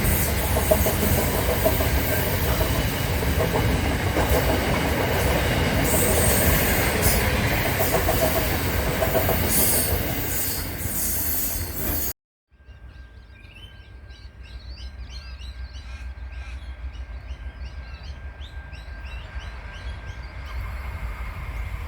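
A train passing close by: loud, steady rolling noise with wheel clatter on the rails. About twelve seconds in it cuts off abruptly, and after a moment's silence there is a much quieter low rumble, a thin steady tone and many short high chirps.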